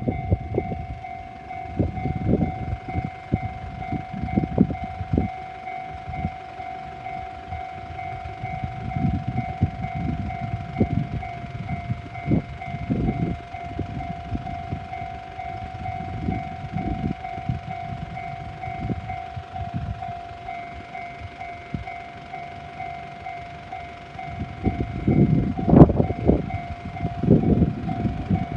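Level crossing warning bell sounding steadily while a JR 719-series electric train rumbles past, its wheels thudding over the rails, loudest about 26 seconds in.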